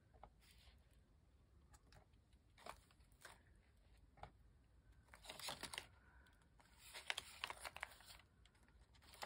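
Faint paper rustling and soft handling sounds as the pages of a handmade paper journal are turned, loudest in two clusters a little past halfway.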